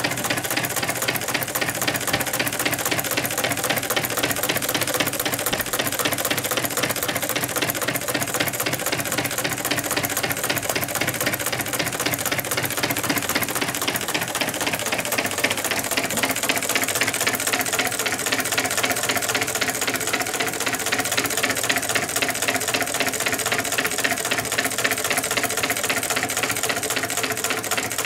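Meccano-built twin-cylinder Stirling engine running steadily with a fast, even clatter of clicks: its displacers landing at each end of their travel, which gives the engine its best performance.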